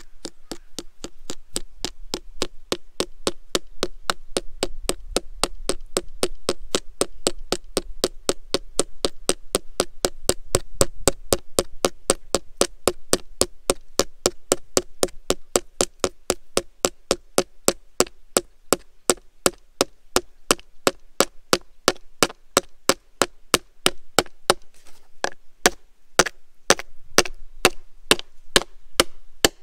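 A coin being hammered into the wood of a coin tree: a long, steady run of sharp knocks, about three a second, with a short break about 25 seconds in before louder, more widely spaced strikes.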